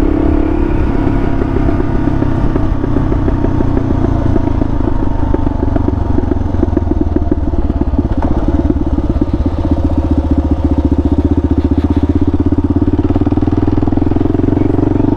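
Kawasaki KLR650's single-cylinder four-stroke engine running at low revs as the bike rolls along a gravel road. The engine eases off in the first second, and its separate firing beats are plain in the second half.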